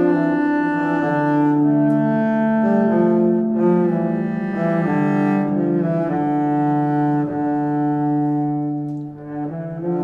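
Background music of low bowed strings holding long, overlapping notes that shift in pitch every second or so.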